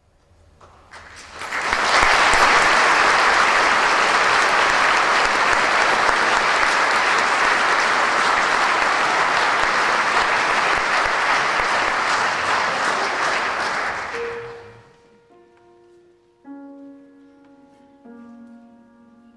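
Concert audience applauding, swelling up within the first two seconds, holding steady, then dying away about fourteen seconds in. Quiet instrumental music follows with a few soft held notes.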